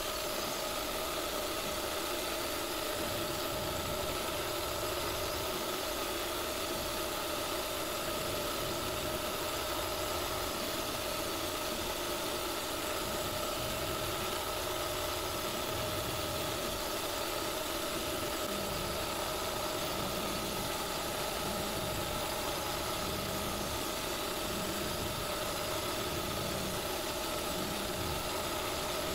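SIEG X3 CNC mill running an end mill through aluminium plate: a steady machining whine with several held tones over a constant cutting noise.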